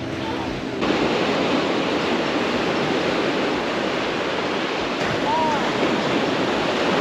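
Small waves breaking and washing up a pebble shore: a steady, even hiss of surf that starts about a second in.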